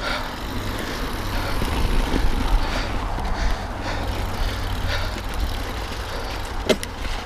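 Mountain bike rolling along a wet trail: a steady rumble of tyres and frame noise with wind buffeting on the action camera's microphone, and one sharp knock near the end.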